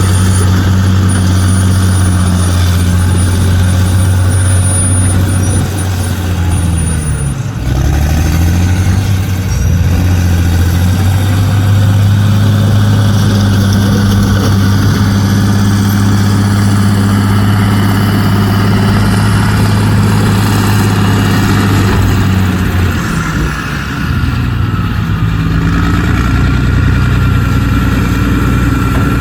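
A dump truck's heavy diesel engine running steadily under load. Its note dips and climbs back up about seven seconds in, and shifts again near the end.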